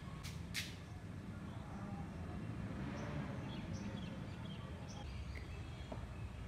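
Steady low background hum with two short sharp clicks just after the start, then a few faint, short bird chirps around the middle.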